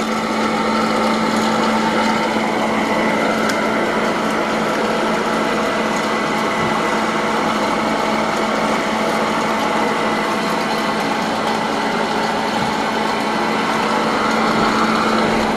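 Freshpop popcorn vending machine running its popping cycle, filling a paper bag at the chute: a steady, even mechanical noise with a constant low hum.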